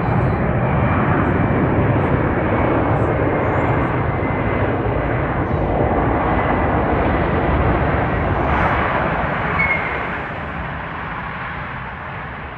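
Boeing 757-200 freighter's jet engines making a loud, steady rushing noise as the plane rolls along the runway after touchdown, easing off about ten seconds in.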